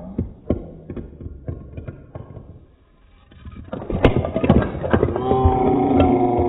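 Pitched-down slow-motion audio: a run of sharp clicks and knocks, loudest around four to five seconds in, then a drawn-out low tone with overtones over the last second or so.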